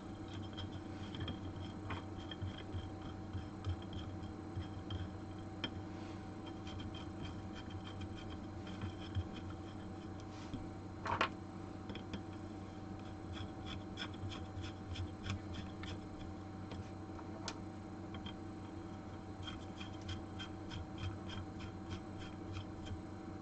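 Small metal parts of a soldering-station helping-hands stand being screwed in by hand: scattered light clicks, ticks and scrapes, with one louder knock about eleven seconds in. A steady low hum runs underneath.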